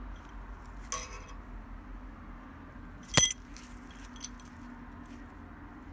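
Metal L-bracket mounting tabs clinking in the hand: a light click about a second in, one sharp ringing clink about three seconds in, and a faint tick soon after.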